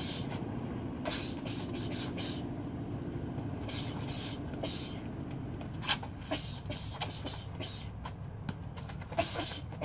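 Short, sharp hissing exhalations, several in a row, of a boxer breathing out with her punches while shadowboxing, over a steady low rumble like nearby traffic. From about six seconds in, light taps and scuffs of boxing shoes on concrete.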